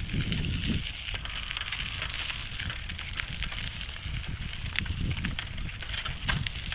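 Wind rumbling on a handheld phone's microphone during a bicycle ride, with scattered crackly handling noise.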